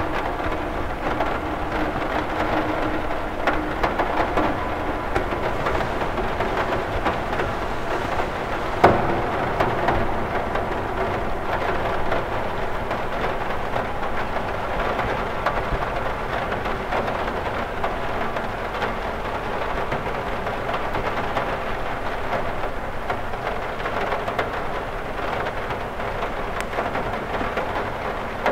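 Steady rain falling on a window. One louder hit stands out about nine seconds in.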